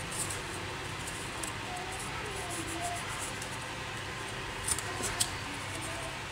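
Wooden popsicle sticks handled and pressed together on a cutting mat, with light clicks of wood and two sharp clicks close together near the end.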